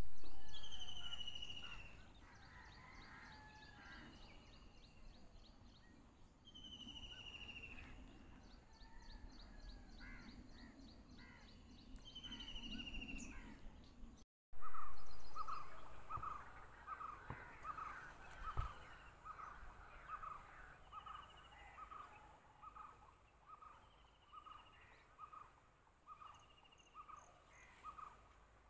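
Wild birds calling: loud descending whistled calls with fast trills, recurring every few seconds. About halfway through, after a short break, a different recording takes over, with a steady series of short calls repeating about one and a half times a second.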